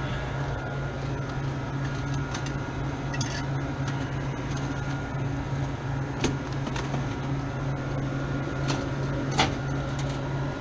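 Steady low hum of a walk-in freezer's running fans, with a few sharp clicks and knocks as the evaporator's cover is handled and opened; the loudest knock comes near the end.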